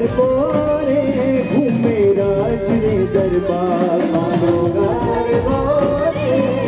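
Live band playing a garba song: a singer's voice carries the melody over a steady drum beat and band accompaniment, amplified through the PA.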